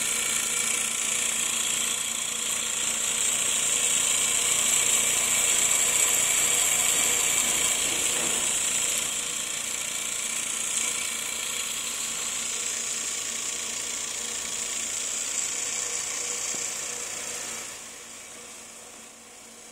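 TSK APM-90A wafer prober running a TTL self-test: a steady machine whir and hiss with a fast rattling pulse beneath it. It turns noticeably quieter about eighteen seconds in.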